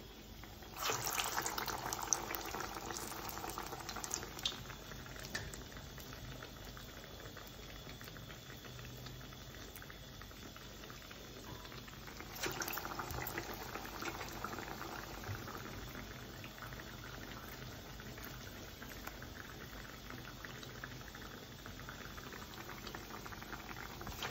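Vadai fritters frying in a pan of hot oil, with steady sizzling and bubbling. The sizzling rises sharply about a second in and again about twelve seconds in as fresh batter goes into the oil, easing back each time to a steady fry.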